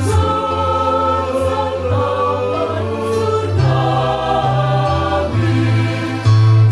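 Mixed choir singing in parts, accompanied by an electronic keyboard whose low notes hold and then step to a new pitch every second or two.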